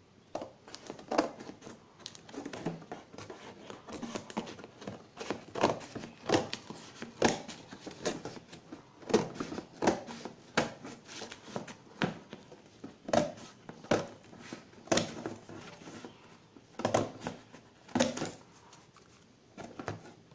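Scissors snipping through the cardboard of a cistern's box to cut off its printed fixing template: irregular snips, the louder ones roughly once a second, with the card crinkling between them.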